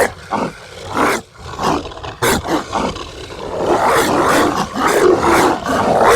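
Zombie dog sound effect: harsh, rasping barks, a few short ones spaced out, then a denser run of barking and growling from about halfway through.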